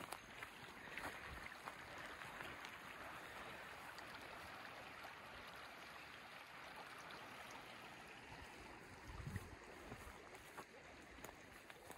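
Shallow creek flowing over gravel, a faint steady rush of water, with a few light clicks and a low thump about nine seconds in.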